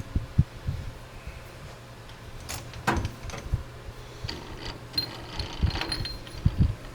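Irregular metallic clicks, clinks and soft knocks from tools and work being handled at a metal lathe, over a faint steady hum.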